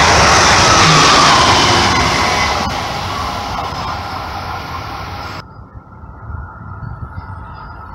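Amtrak Acela high-speed trainset passing close at speed: a loud rush of wheel and air noise that fades as the train pulls away. About five seconds in the sound cuts off sharply, leaving a quieter steady background.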